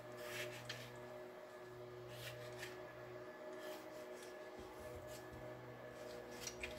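Kitchen knife slicing through a peeled tomato held in the hand, a few faint soft cuts and scrapes spread out over a steady low hum.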